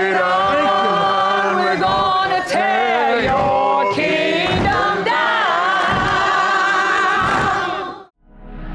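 Gospel choir singing in church, held notes with gliding pitches, cut off abruptly about eight seconds in. A soft, steady ambient music bed begins right after.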